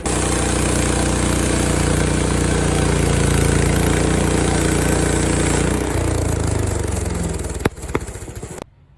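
Frontier OS23 portable bandsaw mill running at high speed, its small gas engine driving the band blade through a short log. About six seconds in the engine note drops, there are two sharp knocks near the end, and the sound stops suddenly just before the end.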